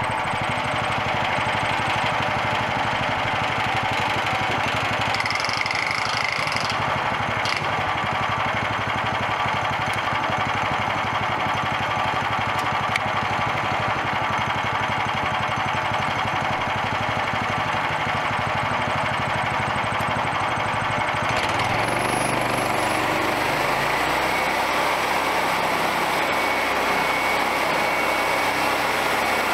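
Engine of a homemade bandsaw sawmill running steadily. Its note changes about two-thirds of the way through.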